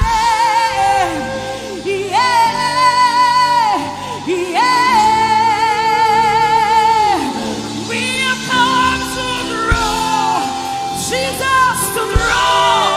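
Live gospel worship singing: a voice holds long notes with strong vibrato, then moves into shorter sung phrases over steady instrumental accompaniment.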